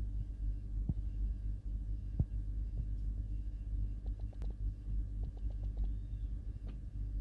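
Steady low hum with a throbbing quality, and a few faint sharp clicks scattered through it.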